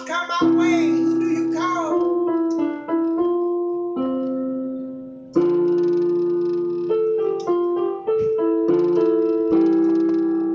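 Electronic keyboard playing slow, sustained gospel chords that change every second or so, with a fresh chord struck loudly about five seconds in.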